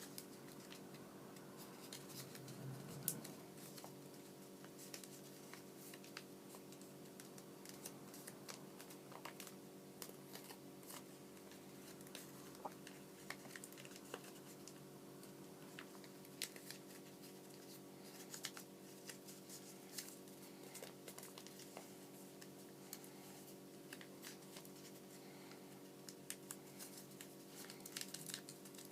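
Origami paper being folded and creased by hand: faint, scattered rustles and taps, one sharper tap about three seconds in, over a steady low hum.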